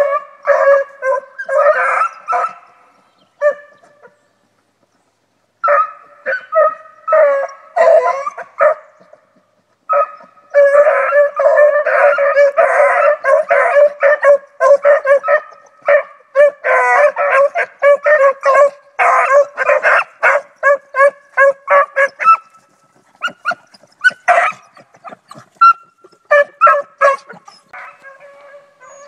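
Three young beagles giving voice on a rabbit's trail: a rapid string of short bays that breaks off for a couple of seconds, then comes back thick and overlapping before thinning out near the end.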